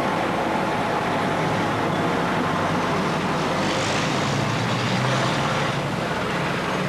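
Double-decker bus's diesel engine running steadily, a little louder about four to five seconds in.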